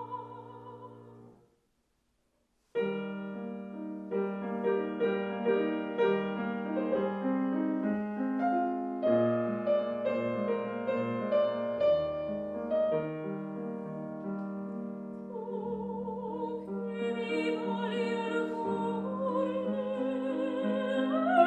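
Classical soprano singing with vibrato to grand piano accompaniment. Her phrase ends about a second in and a moment of complete silence follows. The grand piano then plays an interlude alone, and the voice comes back in about two-thirds of the way through.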